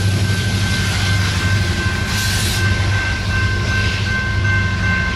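Rear-end distributed-power BNSF SD70ACe locomotive's two-stroke diesel engine running as it moves away down the track, with a thin, steady high ringing over the engine. A short hiss about two seconds in.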